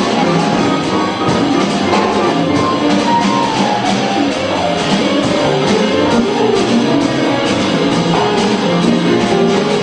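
Latin jazz band playing live: congas and a drum kit with busy cymbal work, over upright bass, in a steady groove.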